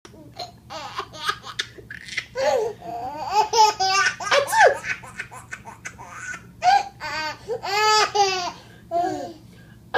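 A baby laughing hard, high-pitched giggles coming in several long bursts with short pauses between them.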